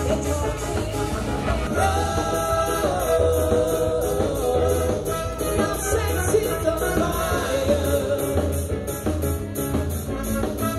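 Live band playing an upbeat song: a woman singing lead over electric guitar, bass guitar and a drum kit keeping a steady beat with regular cymbal strokes.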